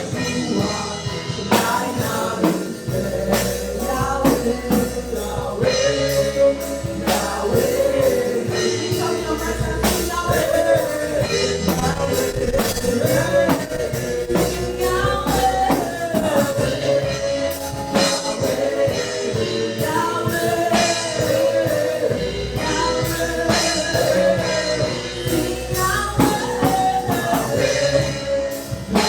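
Gospel praise singing: voices singing over a live band with drums, bass and a steady beat.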